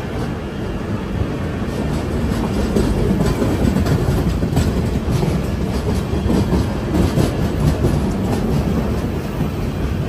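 LHB passenger coaches rolling past as the express pulls out of the station: a steady rumble of steel wheels on rails with clicks at the rail joints. It grows a little louder about two seconds in.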